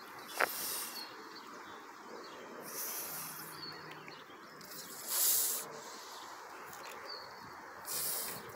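Adult Canada goose hissing four times, each a short breathy hiss about two and a half seconds apart, the loudest just past the middle: a parent goose's warning hiss at an intruder, guarding its goslings.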